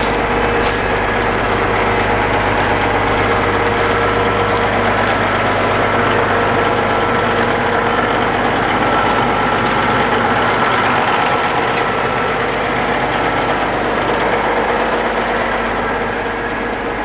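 Caterpillar track tractor's diesel engine running steadily, with a few light clicks in the first couple of seconds.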